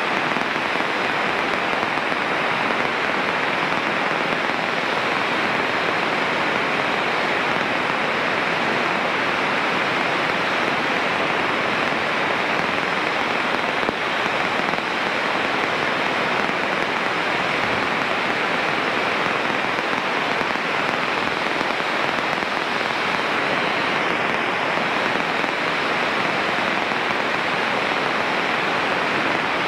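Steady, even hiss of radio static on the aircraft's radio between transmissions.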